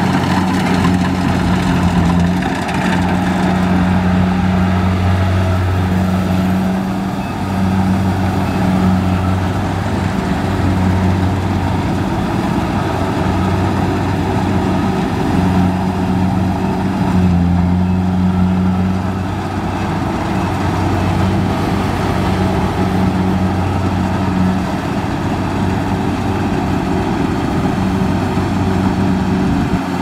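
Kubota DC70 rice combine harvester's diesel engine running steadily under load while the machine cuts and threshes standing rice, with the noise of its cutting and threshing machinery over the engine hum.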